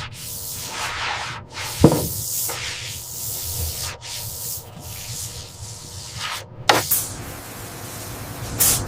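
Hissing, rubbing strokes of surface-finishing work on metal, swelling and fading roughly once a second. A sharp knock comes about two seconds in, another near seven seconds, and a third just before the end.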